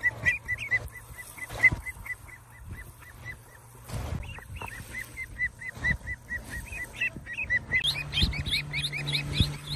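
Young ducks about four weeks old peeping: a rapid, even run of short high calls, about four or five a second. Near the end the calls climb higher and a low steady hum joins them.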